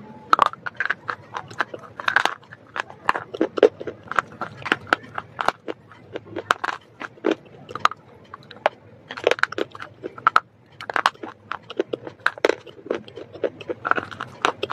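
Close-miked biting and crunching of white slate sticks: an irregular run of sharp crunches and snaps, several a second, with chewing in between.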